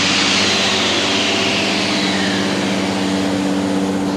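A motor-driven machine running steadily, with a high whine that falls in pitch over the first couple of seconds.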